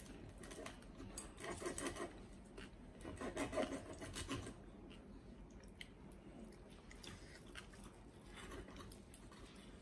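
Table knife sawing back and forth through the crisp crackling of a roast pork knuckle, a rasping scrape in short bouts. The two strongest bouts come in the first half.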